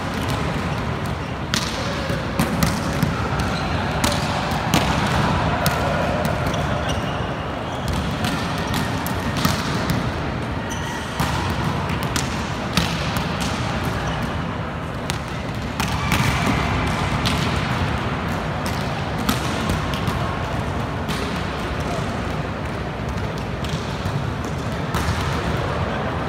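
Volleyballs being hit and bouncing off a hard court floor, sharp slaps and thuds at irregular intervals from several balls in play at once during warm-up. Players' indistinct calls and chatter underneath, echoing in a large sports hall.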